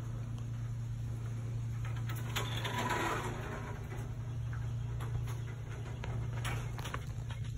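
Steady low mechanical hum, with a brief rustling burst about three seconds in.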